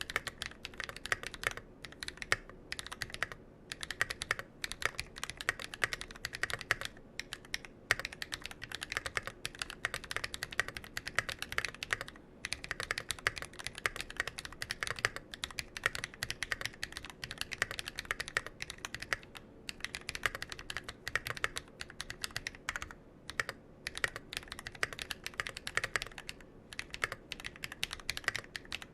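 Fast continuous typing on a mechanical keyboard with tactile Holy Panda switches (YOK Panda housings, Halo True stems) on a Massdrop ALT high-profile board: a dense patter of key clacks with brief pauses between bursts.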